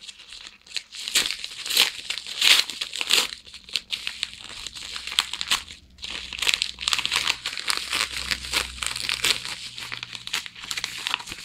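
A paper-faced, bubble-lined padded mailer (Mail Lite envelope) being torn open and handled, with a dense run of crinkling and tearing crackles and a brief lull about halfway.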